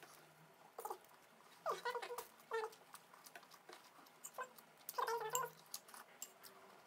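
Eating sounds: fingers working rice on foil and a spoon in a bowl, giving scattered small clicks, with four short high-pitched calls, some dipping in pitch, the loudest about five seconds in.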